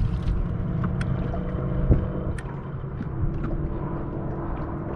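Low rumble of wind on the microphone and water against the bass boat, with a faint steady hum and a few light clicks.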